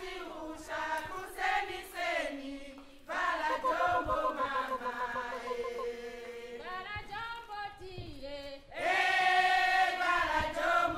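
Choral singing: several voices singing together in long held notes, getting louder about three seconds in and again near the end.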